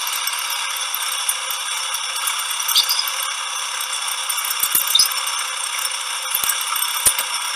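Metal lathe with a capstan tool carousel running as the centre drill cuts into the bar stock for a T-nut: a steady mechanical rattle with scattered clicks and two brief squeaks. It is heard as a video played back over a call, thin with the bass cut away.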